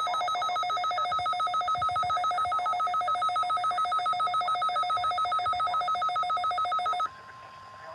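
Midland WR-400 weather radio sounding its electronic alert alarm for a Required Weekly Test: a loud, rapidly pulsing beep of two pitches together. It cuts off abruptly about seven seconds in, leaving a fainter steady tone.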